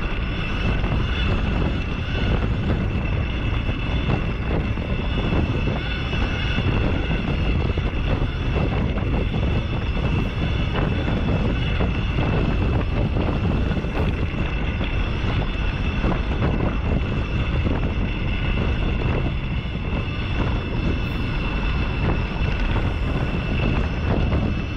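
Segway X260 electric dirt bike being ridden, its motor giving a steady high whine under a low rumble of wind on the microphone and tyres on the dirt trail.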